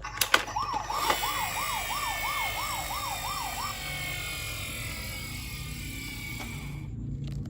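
Toy ambulance minicar's electronic siren sounding a fast up-and-down yelp, about three sweeps a second, for roughly three seconds after a couple of clicks, over a steady hiss that stops shortly before the end.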